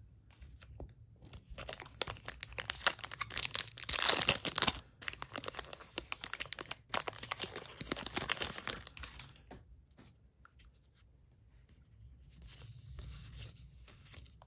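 Foil Yu-Gi-Oh booster pack wrappers being torn open and crinkled in the hands, loudest about four seconds in, with softer rustling near the end.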